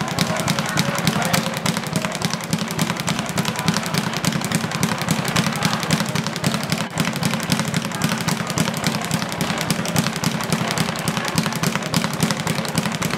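Leather speed bag hit in a fast, unbroken rhythm, drumming rapidly against its rebound board.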